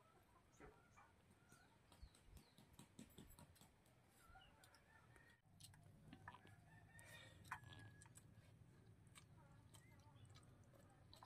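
Faint chickens clucking in the background, with scattered small clicks; a low steady hum joins about halfway.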